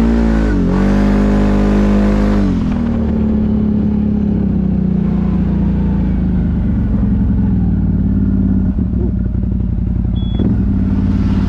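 ATV engine under throttle, its pitch dipping and then rising over the first two and a half seconds before it settles into a steady drone.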